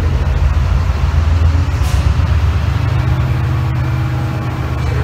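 Class 68 diesel-electric locomotive's Caterpillar V16 engine running with a loud, steady, deep drone as it readies to depart, with a brief hiss of air about two seconds in.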